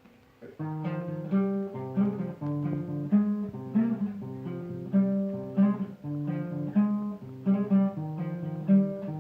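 Acoustic guitar played in a steady rhythm, with chords changing every half second or so, starting about half a second in.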